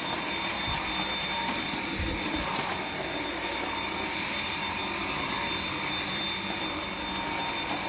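Dyson V7 cordless stick vacuum with its motorhead running steadily: airflow hiss with a high motor whine, and a couple of brief low bumps about two seconds in.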